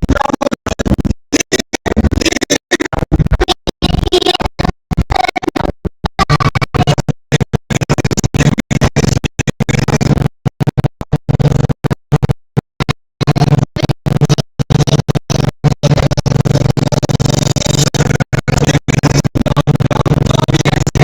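Background music with a choppy scratching, stutter effect: it cuts in and out many times over, with a steadier low beat coming in about halfway through.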